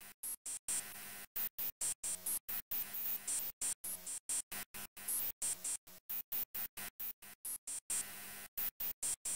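FastTracker 2 XM module music: electronic tracker music chopped into a rapid, even stutter, cutting to silence several times a second, with bright high ticks between the gaps.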